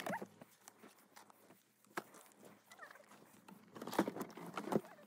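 Bags and items being shifted about in a car boot: scattered knocks and rustles that get thicker about four seconds in. A brief warbling animal call is heard at the very start.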